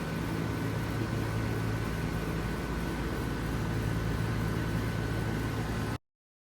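5-ton Lennox Merit series heat pump outdoor unit running steadily, its compressor hum and condenser fan blowing together with a thin whine above. The sound cuts off abruptly near the end.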